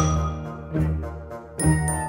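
Background music: a bell-like tinkling melody over low bass notes, with a new note or chord struck about every three-quarters of a second.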